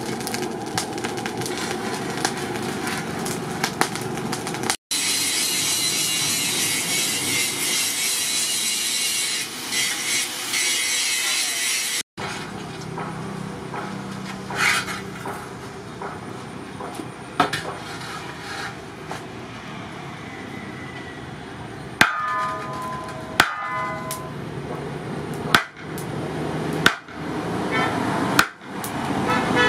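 Steel plough disc being worked at a charcoal barrel forge: clatter and scraping as it is handled, then a loud steady rushing noise for several seconds. Near the end come sharp metal knocks, some ringing briefly, as the disc is struck.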